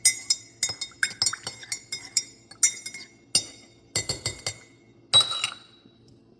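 A spoon clinking repeatedly against the inside of a cup while stirring creamer into coffee: about a dozen irregular ringing clinks, ending with a longer ringing clink about five seconds in.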